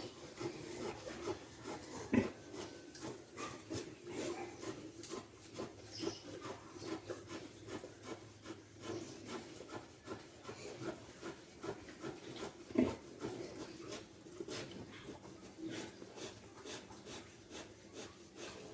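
Pigs in a pen: soft, irregular grunting and scratchy rustling, with a sharper knock about two seconds in and another near the middle.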